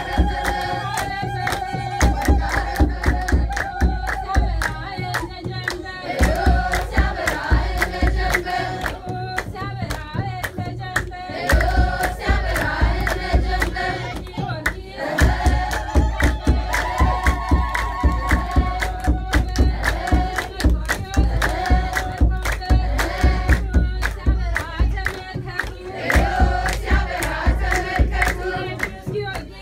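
Group of women singing an Ethiopian Orthodox hymn (mezmur) together, with a kebero drum beaten in a steady rhythm and hand clapping.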